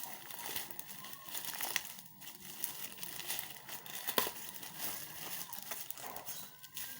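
Plastic and cardboard packaging crinkling and rustling as it is handled and opened, with irregular small crackles and a sharp click about four seconds in.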